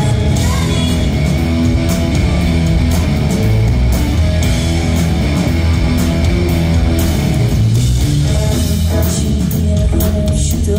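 Live rock band playing loud through the hall's PA, electric guitars and drums in a full, continuous mix, heard from the audience.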